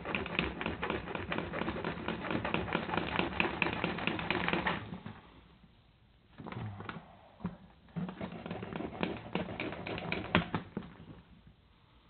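A file rasping in quick back-and-forth strokes on the steel pan of a Duke foothold trap, cutting the notch where the dog catches to make a night latch. The rasping runs for about five seconds, stops briefly, then comes back in shorter runs of strokes.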